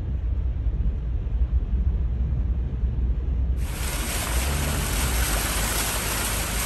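Wind buffeting a phone microphone as a heavy low rumble. About three and a half seconds in it cuts abruptly to a steady, brighter rushing hiss over the same rumble.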